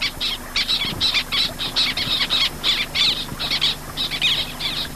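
A flock of white-winged terns calling: a busy, unbroken chatter of short, high calls, several a second, overlapping one another.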